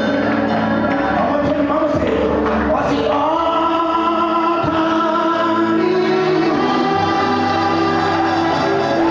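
Live gospel worship singing: a man sings into a microphone over instrumental accompaniment, settling into long held notes from about three seconds in.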